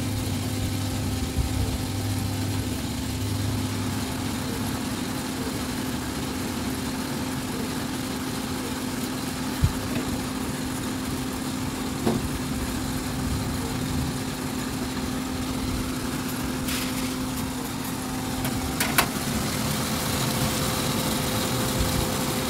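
Small drum coffee roaster running with the flame off, its drum turning the freshly roasted beans to cool and even them out. A steady machine hum with a constant low tone, and a couple of sharp knocks about ten and twelve seconds in.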